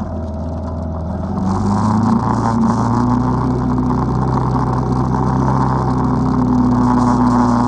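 ATV engine running as it drives through deep snow: it is eased off for about the first second and a half, then picks up throttle and holds a steady pull.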